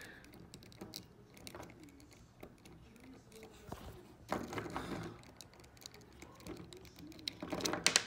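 Small plastic clicks and handling noise from an S.H. MonsterArts Burning Godzilla action figure being worked by hand at its head and ball-jointed jaw. There are louder bunches of clicking about four seconds in and near the end.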